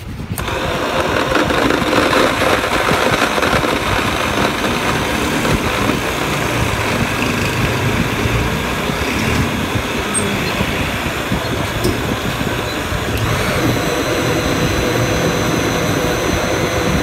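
Electric countertop blender switched on about a third of a second in and running steadily at one speed with a constant motor whine, blending a mango shake with crushed ice.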